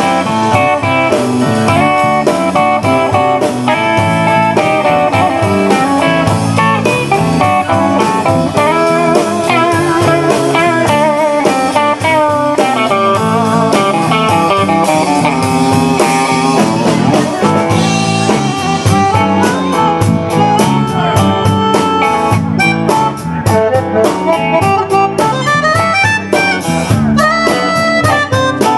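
Live band playing a blues-rock instrumental break, led by electric guitar.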